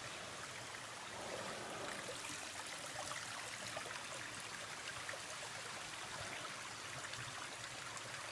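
Steady rush of a small mountain creek flowing, fairly faint.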